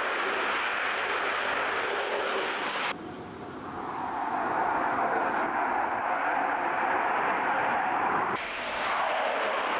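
Eurofighter Typhoon's twin EJ200 turbofan jet engines running at take-off power as the fighter lifts off and climbs away: a steady, loud jet noise. It drops sharply about three seconds in and swells back up over the next second or so.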